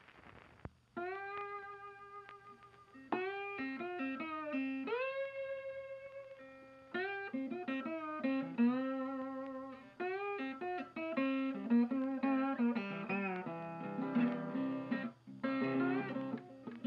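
Background instrumental music: a melody with notes that bend up in pitch, over a low bass line.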